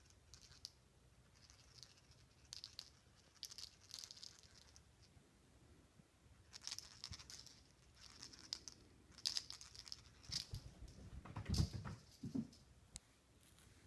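A cat playing with a toy: irregular rustling and scuffling bursts, with a louder soft thump near the end.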